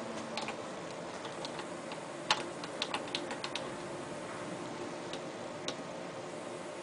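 Front-panel keypad buttons of a bench power-supply tester being pressed, a series of short sharp clicks: one loud click about two seconds in, a quick run of about six right after, and two more a couple of seconds later.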